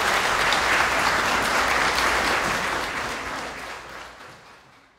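Audience applauding, a dense patter of many hands clapping that holds steady for about three seconds and then fades away.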